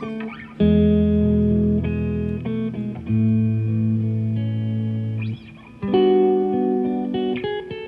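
Instrumental background music with held low notes under higher melodic notes; it dips briefly about five and a half seconds in.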